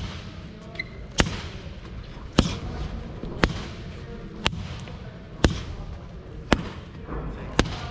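Boxing gloves smacking focus mitts at a steady pace of about one punch a second, seven sharp hits, each with a short echo.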